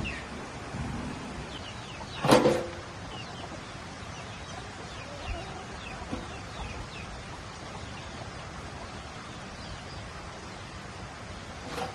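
Chickens clucking: one loud cluck about two seconds in and another near the end, with faint high chirps scattered in between.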